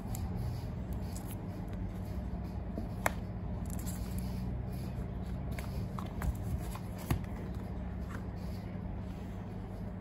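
Hands handling paper and cardboard tablet packaging: a paper sleeve and box insert rustling and sliding, with a few sharp taps. A steady low hum runs underneath.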